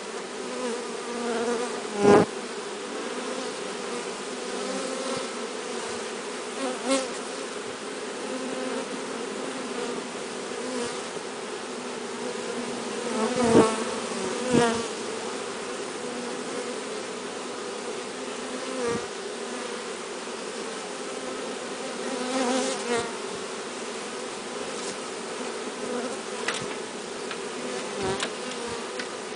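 A honeybee swarm buzzing steadily in a dense hum, many bees in the air around the box they are being shaken into. A few sharp knocks cut through the hum, the loudest about two seconds in and around fourteen seconds in.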